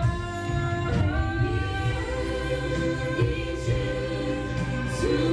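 Pop song with held, layered vocal harmonies over a steady backing beat.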